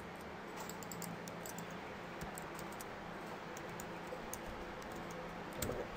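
Computer keyboard typing: scattered, faint key clicks over a low, steady hum.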